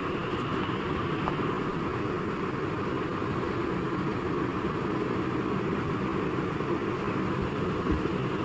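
A steady low mechanical hum that does not change, with no distinct knocks or calls.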